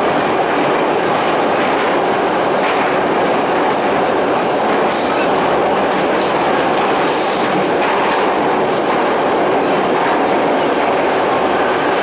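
Kyiv metro train heard from inside the carriage while running: a steady loud rolling rumble, with high-pitched wheel squeals coming and going several times.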